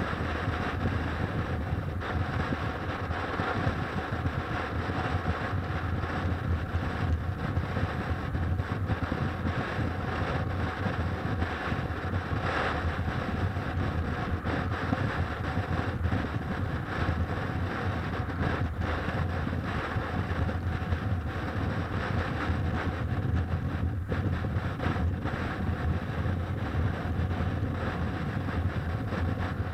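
Motorcycle cruising at freeway speed, heard from a camera mounted on the bike: steady wind noise on the microphone over a low drone of engine and road noise.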